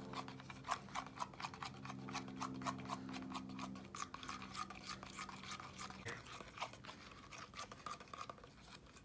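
Plastic straw stirring thick glitter-flecked lotion in a stainless steel cup: quick, repeated squelching scrapes and clicks against the metal, a few a second. A faint steady low hum underneath stops about six seconds in.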